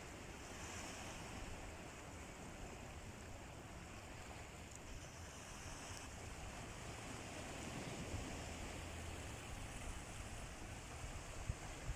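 Sea surf washing steadily onto the shore, an even rushing hiss of waves, with a few short low thumps near the end.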